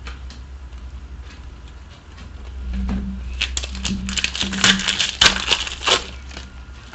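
Foil trading-card pack wrapper being torn open and handled, a cluster of crinkling and crackling that builds about halfway through and dies away near the end.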